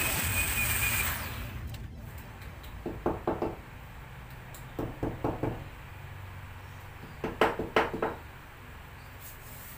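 Electric drill boring into a wall, stopping about a second in. Then a hammer taps plastic wall plugs into the drilled holes in three quick bursts of about four light knocks each, the last burst loudest.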